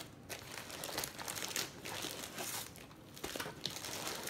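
Clear plastic packaging bag crinkling and rustling in the hand, a run of irregular crackles.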